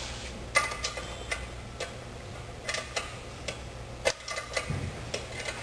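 Irregular sharp metallic clicks and taps from a hand tool working the bolts that hold a belt grinder's tensioner assembly to its main bracket, as they are retightened.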